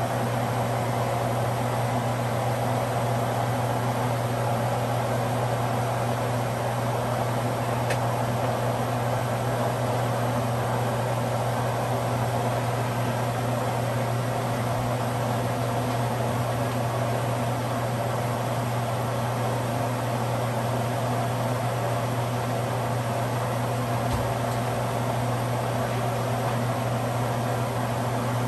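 Steady mechanical hum with an even airy whoosh, like a fan or kitchen appliance running, unchanging throughout.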